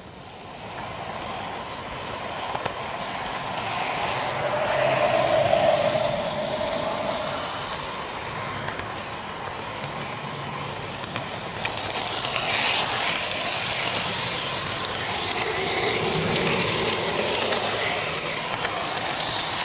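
N-gauge model train running along its track: small electric motor whine and the rattle of wheels on the rails. It grows louder over the first few seconds, then holds steady.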